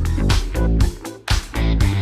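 Background music with a steady beat, drum hits over a bass line and pitched instrument notes.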